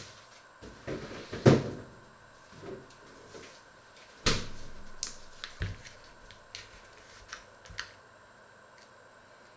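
Scattered knocks and clicks of kitchen things being handled: two sharp knocks about one and a half and four seconds in, then lighter clicks that die away.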